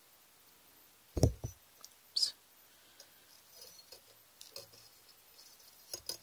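Faint handling sounds of thin craft wire being threaded and pulled around a wire frame by hand: a few soft clicks and ticks, a short thump about a second in and a brief scrape about two seconds in.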